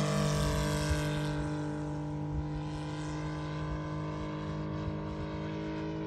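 Saito FG-90R3 three-cylinder radial four-stroke petrol engine running a propeller on a model F4U Corsair in flight, a steady drone that fades over the first two seconds as the plane climbs away, then holds even.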